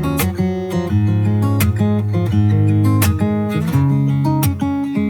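Background music: a pop song's instrumental intro with strummed acoustic guitar and a steady beat, before the vocals come in.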